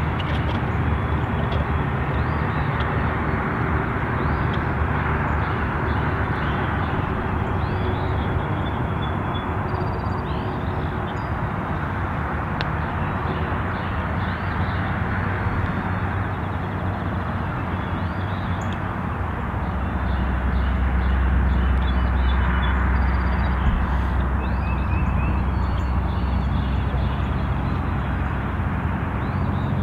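Steady outdoor rumble of distant road traffic, swelling for a few seconds about two-thirds of the way through as a vehicle passes, with small birds chirping faintly over it.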